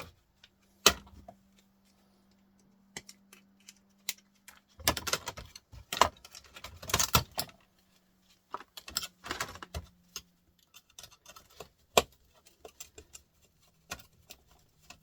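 Metal and plastic parts of a small flat-screen TV clinking and clattering as it is taken apart by hand, with a few sharp knocks and two longer bursts of rattling.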